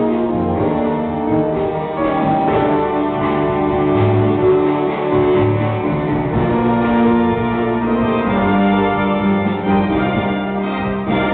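Youth jazz big band playing live: saxophones, trumpets and piano, with the trumpet section raised and playing in the second half.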